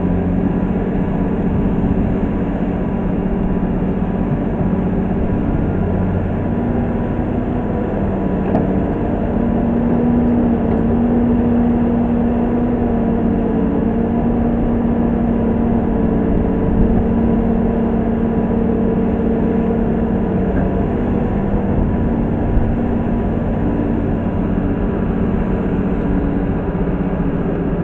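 Komatsu PC200-6 excavator's diesel engine running steadily under hydraulic load while it digs and swings to load a dump truck. Its note rises about six seconds in and holds higher through the middle as the machine works harder.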